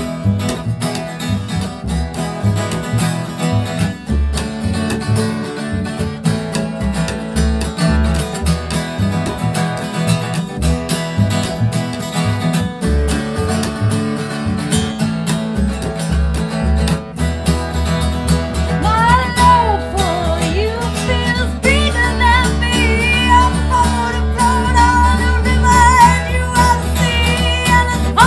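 Instrumental break in an acoustic song: acoustic guitar and a plucked upright double bass playing together with a steady bass line. About two-thirds of the way through, a high, wavering wordless melody line comes in over them.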